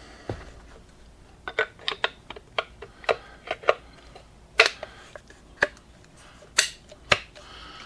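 Irregular metal clicks and clacks of a 20-gauge side-by-side shotgun being put back together by hand, with a few sharper snaps in the second half.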